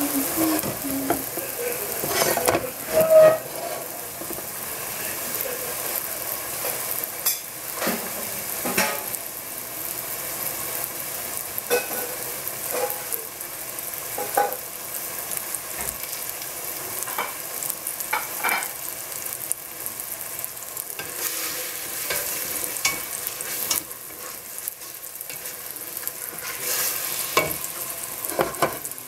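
King trumpet and abalone mushroom slices sizzling in oil in a nonstick frying pan, with scattered crackles and pops of spattering oil. A brief louder knock comes about three seconds in.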